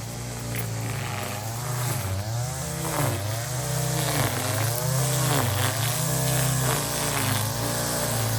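An engine running steadily, its pitch repeatedly dipping and recovering as though it takes load and lets off again every second or so.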